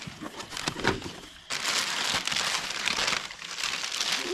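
Packaging being crinkled and rustled as a toolkit box is unpacked: a few light clicks and knocks at first, then from about a second and a half in a dense, continuous crinkling.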